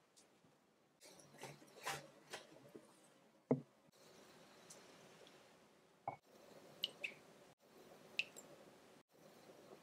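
Soft rustling and pressing of dumpling dough as a dumpling is pleated and set down, with a light knock about three and a half seconds in. Then a few light clinks of a wooden spoon against a glass bowl and small drips of soy sauce falling from the spoon into it.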